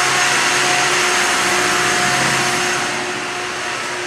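Steady, loud mechanical rushing hum of a research ship's onboard machinery, with a couple of steady tones in it, growing fainter near the end.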